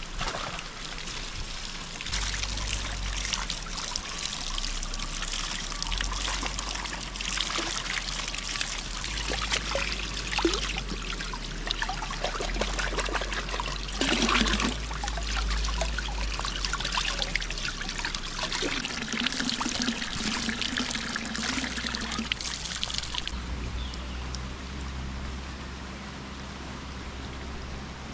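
Water trickling and splashing steadily, with many small irregular splashes.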